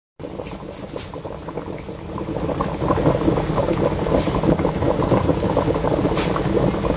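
Fish stew bubbling in a pan on the stove, a steady crackle of small bursting bubbles in the broth that grows louder about two and a half seconds in.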